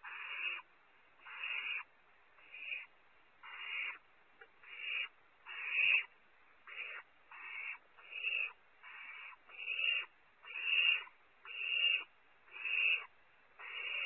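Barn owl owlets giving rasping hiss calls, about one a second, each swelling in loudness before it breaks off: the nestlings' hissing contest over prey that one sibling is keeping.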